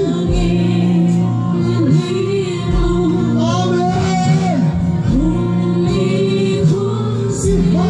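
Live gospel worship song: a woman sings lead through a PA with a band of guitars and keyboard, holding long notes with vibrato over a steady accompaniment.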